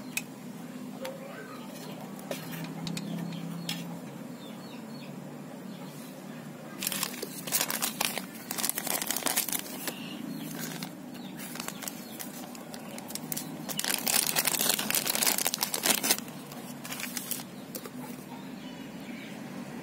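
Clear plastic bag crinkling as it is handled, in two spells of a few seconds each, about seven and fourteen seconds in, over a steady low hum.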